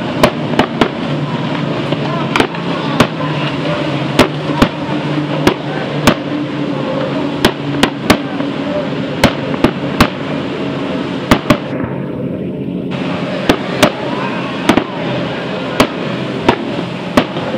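Firecrackers going off in rapid, irregular succession, about two sharp bangs a second, over the steady drone of many speedboat engines at full throttle.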